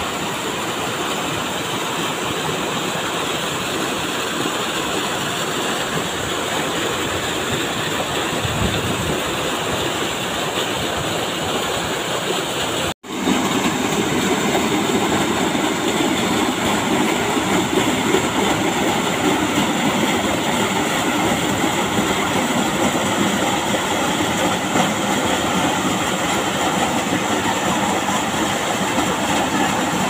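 Small waterfall pouring over rocks into a plunge pool: a steady rush of falling water. About thirteen seconds in the sound cuts out for an instant and comes back louder and fuller.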